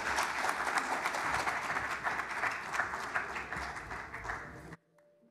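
Audience applauding in an auditorium, many hands clapping at once. It eases off slightly, then cuts off suddenly near the end.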